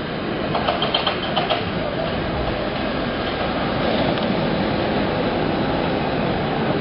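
Cable car rolling past close by on its street rails: a steady rumbling clatter that grows louder as it nears, with a quick run of sharp metallic clangs about a second in.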